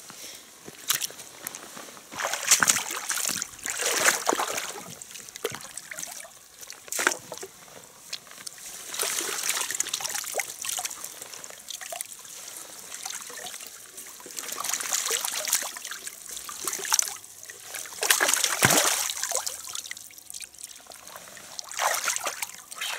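Water splashing and sloshing in irregular surges, with trickling and dripping, as a fish keepnet is shaken out and lifted in shallow lake water to release the catch.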